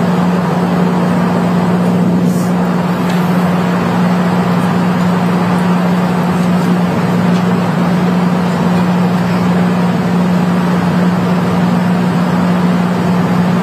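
Recorded airplane cabin noise: a loud, steady rushing drone with a strong constant low hum from the aircraft in flight.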